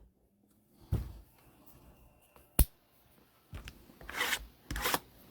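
Handling noises on a tabletop as card boxes and supplies are set up: a soft knock about a second in, a sharp click a little later, then rubbing and scraping for the last couple of seconds.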